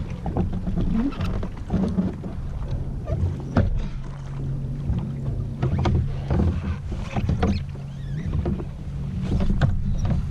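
Jet ski engine idling steadily, with scattered knocks and clicks.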